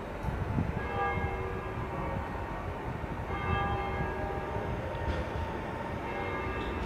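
Bells ringing in three bursts of overlapping tones, over the low rumble of an approaching ETR 425 Coradia electric multiple unit.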